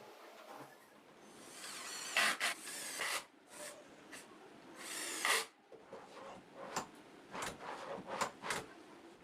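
A hand tool rubbing and scraping on wood: two longer strokes, then a run of short, quick strokes near the end.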